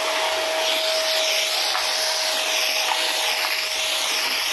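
Morgan vacuum cleaner running steadily, a constant motor tone under a loud rush of air, its floor nozzle pushed back and forth over a tiled floor so the hiss swells and dips about once a second.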